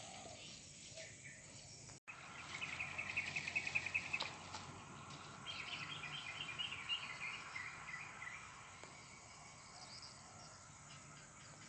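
Tropical forest ambience: two runs of rapid, high chirping trills, the first about two seconds in and a longer one through the middle, over a faint steady hiss.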